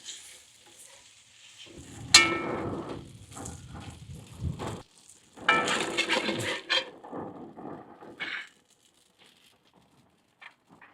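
Stir-frying in a wok: a metal spatula scraping and knocking against the wok while the food crackles. Two louder ringing metal clangs come about two seconds in and again around five and a half seconds, and it goes nearly quiet in the last couple of seconds.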